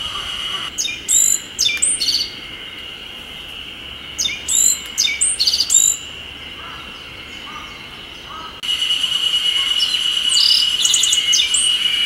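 Black-faced bunting singing three short, high, twittering song phrases, over a steady high-pitched drone of cicadas that grows louder in the last few seconds.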